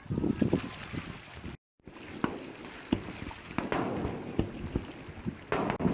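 Aerial fireworks bursting over a lake: a run of sharp bangs and crackles, some with a rolling echo, over a steady rumble. The sound cuts out completely for a moment about a second and a half in.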